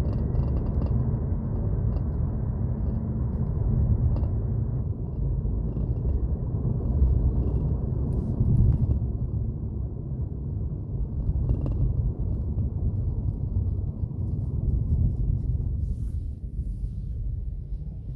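Interior road noise of a BMW 328i driving: a steady low rumble, with a few faint knocks over the road surface. The knocking is the body rattle that the dealer traced to a loose clip on the parking-brake cable bracket, set off by any unevenness in the road.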